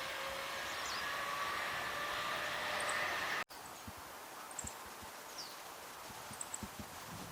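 Meadow bunting giving short, thin, high call notes a few times, with one or two brief falling notes. A steady distant hum lies under the first half and cuts off abruptly about halfway.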